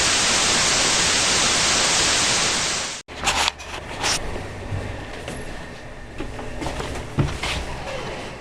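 A loud, even hiss like static cuts off abruptly about three seconds in. It is followed by quieter knocks and handling noises as the computer tower is moved about.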